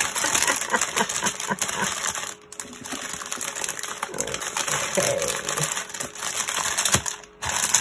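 Clear plastic packets of diamond-painting resin drills crinkling and rustling as they are handled and folded, with small clicks from the gems shifting inside. The handling pauses briefly twice, about two and a half seconds in and near the end.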